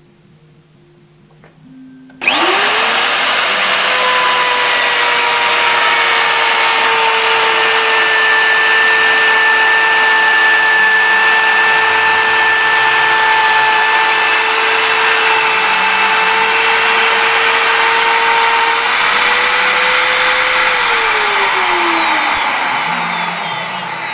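Electric wood router (milling machine) motor switched on, spinning up quickly to a steady high whine, running at speed, then switched off and winding down with falling pitch near the end.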